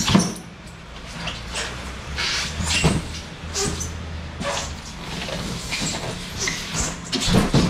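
A steady low engine hum with several sharp knocks and thuds, the loudest right at the start, about three seconds in and near the end.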